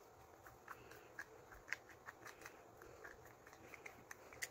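Faint, irregular clicks and ticks of a hand screwdriver turning a screw in a cookware lid knob.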